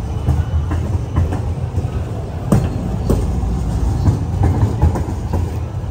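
City tram running past on street rails: a steady low rumble with scattered sharp clacks of the wheels.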